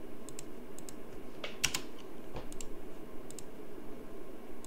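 Scattered clicks of a computer keyboard and mouse, the loudest about one and a half seconds in.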